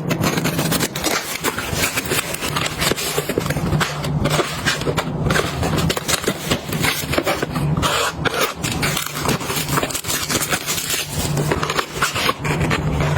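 Steady busy clatter of objects being handled: many small clicks, knocks and scrapes one after another, with no pause.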